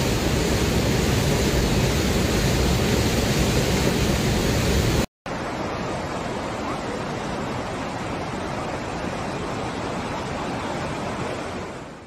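Rushing floodwater making a steady, loud rush of noise. It drops out for an instant about five seconds in, comes back slightly quieter, and fades near the end.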